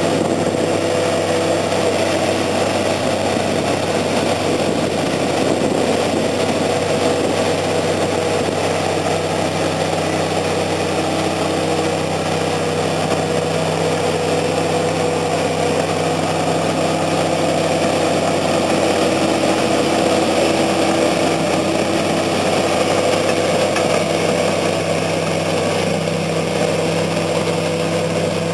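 Diesel engine of heavy earth-moving machinery running steadily at a near-constant speed, its pitch shifting only slightly.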